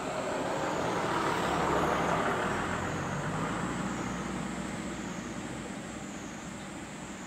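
A road vehicle passing by: its running noise swells to a peak about two seconds in, with a low hum, then slowly fades away.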